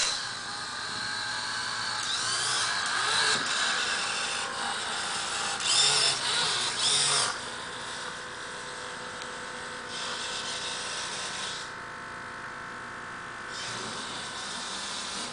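Hobby servo motors in a 3D-printed InMoov humanoid robot whirring and buzzing in stretches of a second or two, with brief rising and falling whines, as a scripted sequence turns the neck and moves the arm. Loudest in the first seven seconds, fainter after that.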